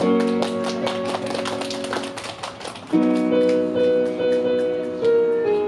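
Electronic keyboard playing in auto-accompaniment mode: held chords under a melody line, with a fast ticking drum pattern. The chord changes about three seconds in.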